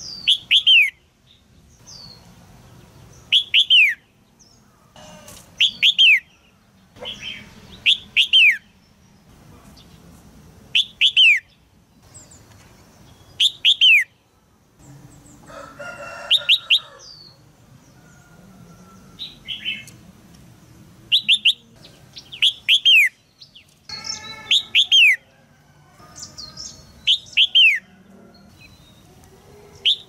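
Red-whiskered bulbul giving short, sharp downslurred calls, often in pairs, repeated every two to three seconds. Harsher, lower calls come in twice, about halfway through and again some eight seconds later.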